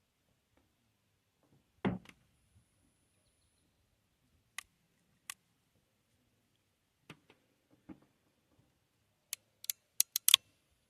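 Scattered clicks and light knocks from MC4 connector parts and hand tools being handled: a dull knock about two seconds in, a few single clicks, then a quick run of about six sharp clicks near the end.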